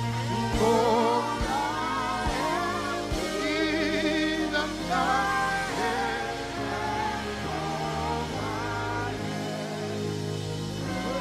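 Live gospel worship music: a lead voice sings wavering runs and held notes with vibrato over sustained keyboard and bass chords, with a few drum hits in the first seconds.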